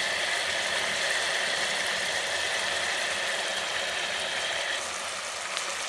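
Steady sizzle of chicken and onions frying in oil in an aluminium pressure cooker, an even hiss that drops a little about five seconds in.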